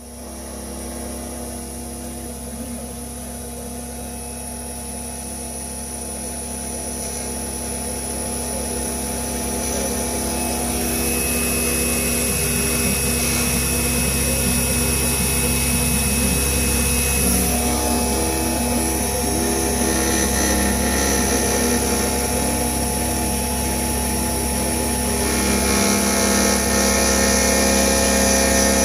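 CNC milling machine cutting a connecting-rod blank on an adaptive clearing toolpath: a steady machine hum and whine from the spindle and drive motors that grows gradually louder.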